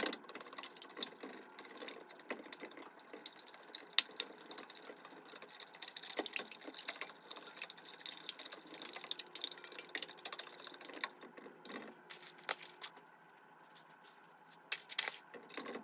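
A whisk beating raw eggs in a bowl: a long run of quick, irregular clicks and taps of the whisk against the bowl, with the wet sloshing of the eggs.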